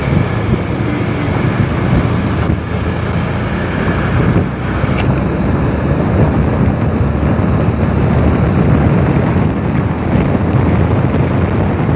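Steady wind rush over the rider's microphone mixed with the road and engine noise of a TVS Apache motorcycle being ridden at a steady speed.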